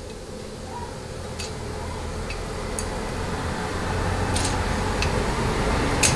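Light metal clicks and taps, about six in all, from a feeler gauge being slid under a straightedge laid across a Ford C6 transmission pump cover to check it for flatness. Under them a steady low hum grows louder toward the end.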